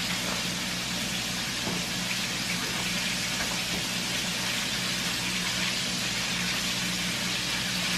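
Steady sizzle of breaded chicken frying in hot oil: an even hiss with a few faint crackles and a low hum beneath.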